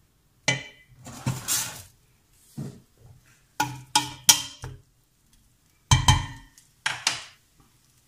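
Stainless steel cooking pot knocked and clanked about eight times in small groups, each hit ringing briefly, with a short scrape about a second in.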